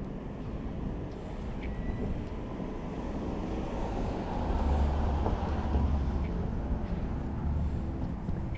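Road traffic noise heard from a bicycle on a city street, growing louder for a couple of seconds in the middle with a heavy low rumble, then easing off.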